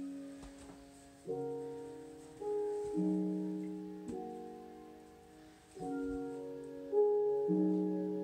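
Background piano music: slow chords, each struck and left to fade.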